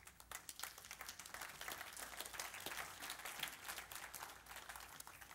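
Congregation applauding: a dense patter of many hands clapping that starts at once and thins out toward the end.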